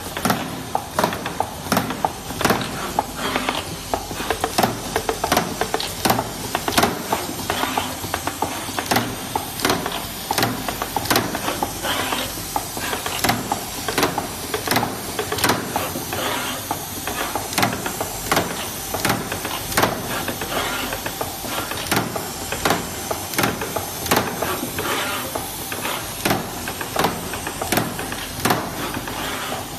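Automatic 18650 battery-cell spot welding machine cycling in no-load run mode: a steady hiss with an irregular stream of sharp clacks, about two a second, from its pneumatic fixtures and moving parts.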